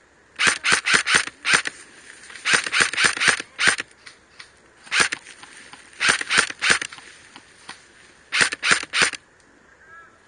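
Airsoft rifle firing as covering fire: rapid sharp shots in five short strings of about four to seven shots each.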